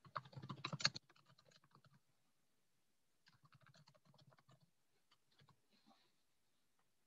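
Faint computer-keyboard typing through a video-call microphone: a quick run of key clicks in the first second, then scattered bursts of typing with pauses between.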